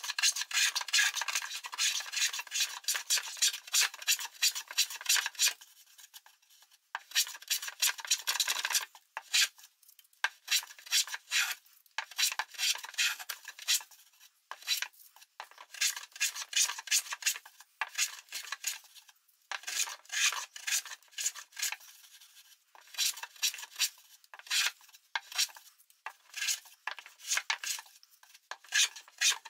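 Metal bench hand plane shaving wood in rapid short strokes, trimming glued-in blocks that stand proud of the surface down flush. The strokes come in quick runs with short pauses every few seconds.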